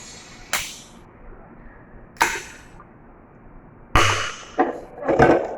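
Close, sharp crunches from biting and chewing crisp fried chicken, about six of them at irregular gaps, with a cluster near the end.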